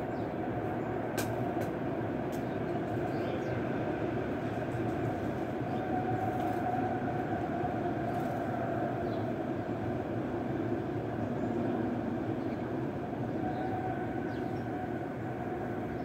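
Steady rumbling background noise with no clear rhythm, and a few faint clicks in the first three seconds.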